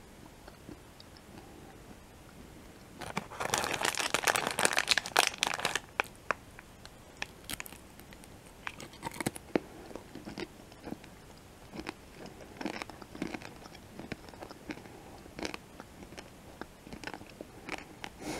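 Close-miked crunching and chewing of peanut M&M's. A loud burst of crunching starts about three seconds in and lasts about three seconds, followed by quieter, scattered crunches and wet mouth clicks as the chewing goes on.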